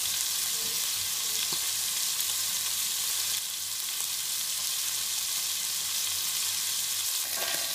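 Chicken livers frying in hot oil in a stainless steel pan: a steady sizzle that eases slightly about halfway through.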